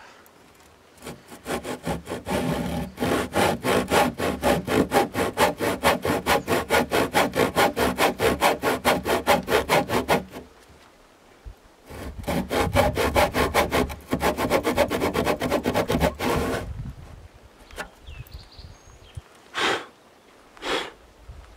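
Handsaw cutting a shallow kerf across a squared timber beam, down to about half an inch deep. It goes in quick, even strokes of about four a second, pauses briefly about halfway, then stops a few seconds before the end; two short brushing sounds follow near the end.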